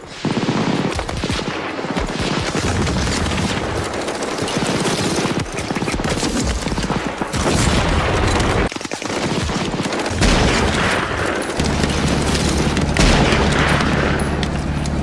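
Blank rifle and machine-gun fire, shots crackling and overlapping in a continuous fusillade. In the last few seconds an armoured car's engine runs steadily under the shooting.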